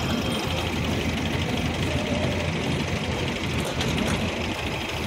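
Tractor diesel engines running steadily, with a rapid even firing beat, while a tractor-driven soil loader works and pours earth into a trolley.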